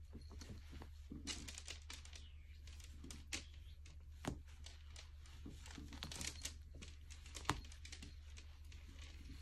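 Faint rustling and scratching of a cat rolling and rubbing against a plush cat-tree perch, with a few sharp clicks, the loudest a little past seven seconds in, over a steady low hum.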